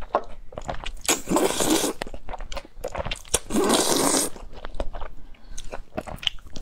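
Noodles slurped close to the microphone in two long sucking pulls, about a second in and again past the middle, with wet chewing and small mouth clicks between them.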